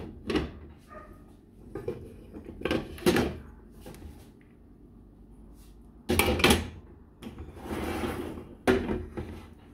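Glass pan lids clinking and knocking onto frying pans, a few light strikes in the first three seconds. About six seconds in, a louder metal clatter and scrape as a skillet is moved on the gas stove's grate, with another sharp knock near the end.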